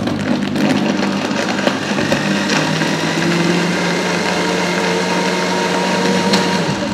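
Agaro Nutri personal blender motor running at a steady speed, blending milk, ice cream and peanut chikki pieces into a shake, then switched off near the end.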